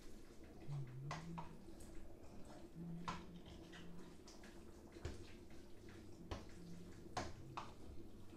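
A spatula stirring thick leafy vegetable soup in a stainless steel pot: quiet, wet squelching strokes, several in a row.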